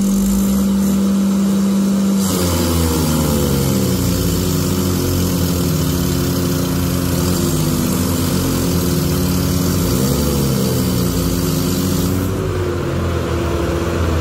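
Tractor diesel engines, including a Mahindra 575 DI, working hard under load to drag a sand-laden trolley stuck in soft ground. One engine holds a steady pitch at first. About two seconds in, several engine notes start rising and dipping as the throttle changes.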